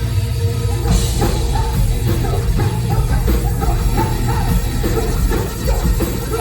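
Loud live band music played over a stage sound system, driven by drums and a heavy bass line.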